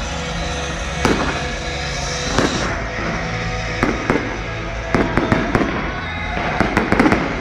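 Aerial fireworks going off: a series of sharp bangs and crackles about a second apart, coming thick and fast in a quick cluster near the end, with music playing underneath.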